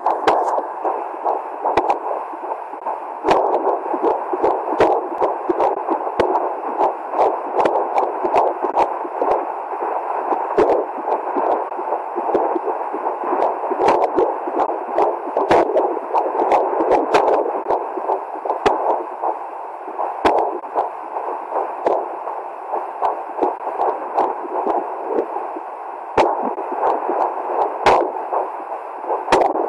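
Fetal Doppler monitor audio: a continuous rushing noise with many sharp, irregularly spaced clicks cutting through it, which are an unborn baby's hiccups picked up by the Doppler probe.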